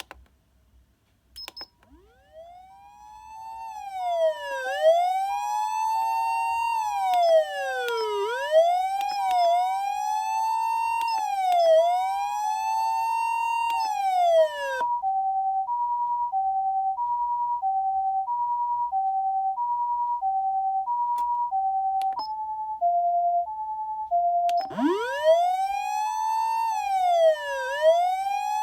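Osaka Siren OPS-5101V-Q ambulance siren amplifier sounding the Japanese ambulance two-tone hi-lo "pee-po" with a wailing siren swept up and down over it. After a click, the wail winds up from low. It stops about 15 seconds in, leaving the hi-lo alone, which briefly shifts lower a little after 22 seconds. Near 25 seconds the wail winds up again over the hi-lo.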